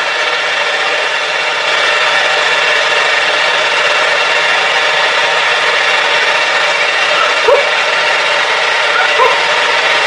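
Hand-held hair dryer running steadily: a loud blowing hiss with a motor whine. A cat gives two short rising meows near the end.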